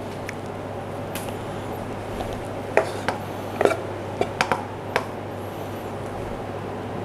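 A spatula knocking and scraping on a plate as fried rice is pushed into a mound. There are a handful of light clicks starting about three seconds in, over a steady low hum.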